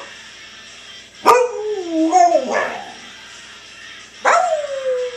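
A husky-type dog giving two drawn-out vocalizations, about three seconds apart: each starts with a sharp bark and runs on into a long, wavering howl that slides down in pitch.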